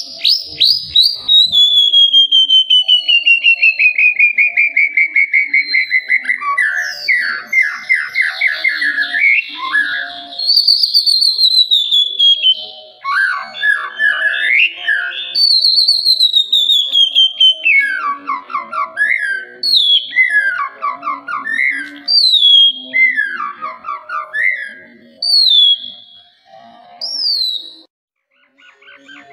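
White-rumped shama (murai batu) singing: a long, rapid trill that slides down in pitch, then a run of short phrases, each a falling whistle followed by fast rattling notes.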